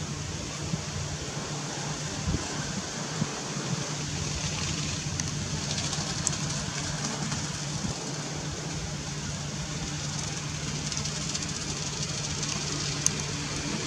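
Steady background noise: a low hum under a continuous hiss, with a few sharp clicks, the clearest about six seconds in and near the end.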